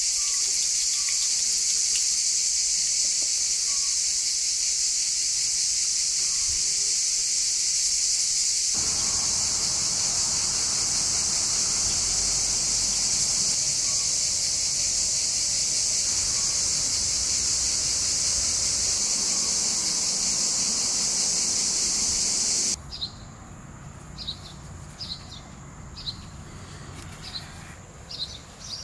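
Loud, steady chorus of insects, which cuts off abruptly about 23 seconds in. After that a bird chirps repeatedly over a much quieter background.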